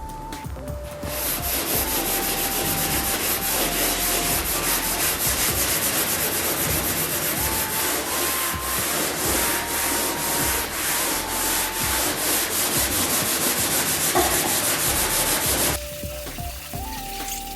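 Sanding on car bodywork: a loud, scratchy rubbing made of many quick strokes, over background music. It starts abruptly about a second in and stops abruptly shortly before the end.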